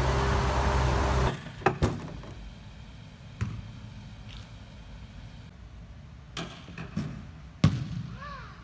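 A steady outdoor hum cuts off about a second in. Then come half a dozen sharp, echoing thuds of soccer balls being kicked on artificial turf in a large indoor hall.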